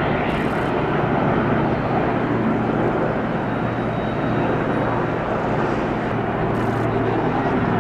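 Two police helicopters, a BO-105 and an EC-135, flying past overhead with a steady rotor and turbine din.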